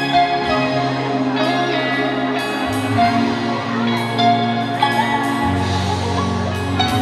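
Live band playing music, with held bass notes that change every few seconds.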